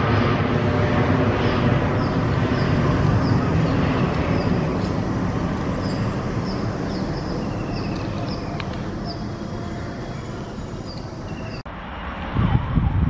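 Boeing 787 airliner's twin jet engines climbing out after takeoff, the engine noise steadily fading as the plane draws away. Near the end it cuts off abruptly to wind buffeting the microphone.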